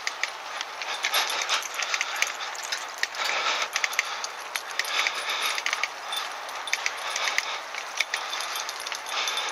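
Bicycle rolling at walking pace on a wet tarmac lane: a steady tyre hiss with many small clicks and rattles, alongside a dog trotting on a springer attachment.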